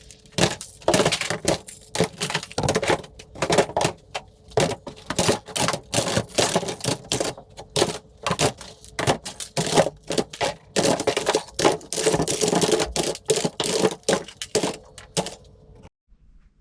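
Rapid, irregular clicking and clacking of toy guns, plastic on plastic, stopping abruptly near the end.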